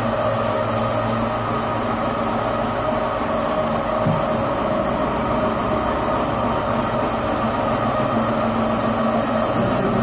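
Maxis automatic carpet washing machine running, its rotating brush discs scrubbing a wet carpet: a steady machine hum with a hiss over it.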